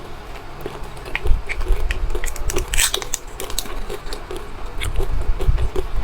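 Close-miked chewing and biting of chocolate beans, with many small crisp crunching clicks and soft low thuds.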